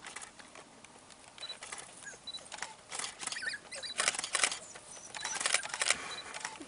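African wild dog pups squealing and twittering in a chorus of short, high-pitched calls as they mob an adult, begging it to regurgitate food. The calls grow busier and louder from about three seconds in.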